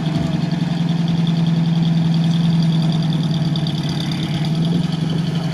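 UAZ off-roader's engine idling steadily.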